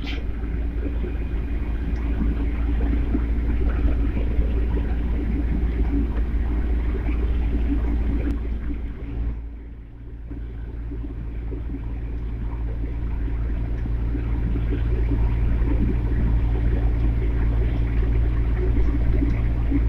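Cabin noise of a tour bus driving off-road over rough desert ground: a steady low rumble of engine and tyres. It dips briefly about halfway through, then builds back up.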